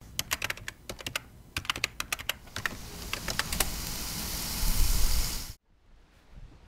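Rapid, irregular keyboard typing clicks for about three and a half seconds. From about three seconds in they are overlapped by a building sizzle of beef short ribs (galbi) grilling over charcoal, which cuts off abruptly about five and a half seconds in.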